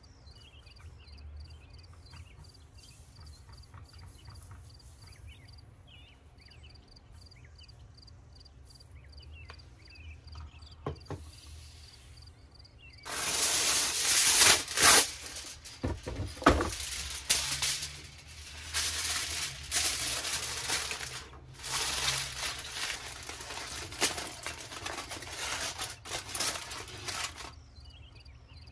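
Aluminium foil being handled and crinkled as it is folded and pressed around food: a dense crackling full of small sharp clicks that starts about halfway through and stops shortly before the end. Before it, only faint small sounds and a soft click.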